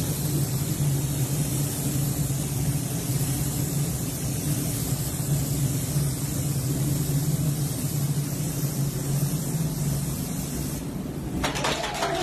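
Paint spray gun hissing steadily over the droning of a spray booth's ventilation. Near the end it cuts off and a group starts clapping and cheering.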